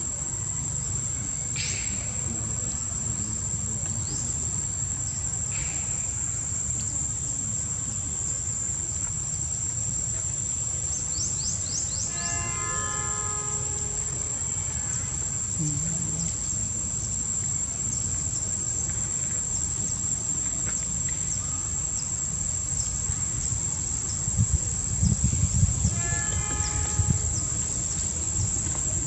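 Steady, high-pitched insect drone running unbroken, over a low rumble. A few low thumps near the end are the loudest sounds.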